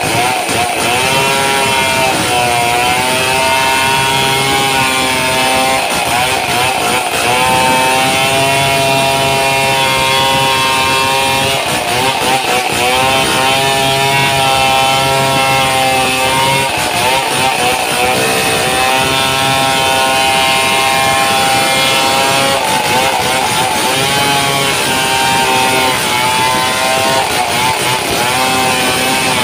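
Two-stroke chainsaw running at full throttle, ripping lengthwise along a waru log; the engine pitch sags under the load of the cut and climbs back every few seconds.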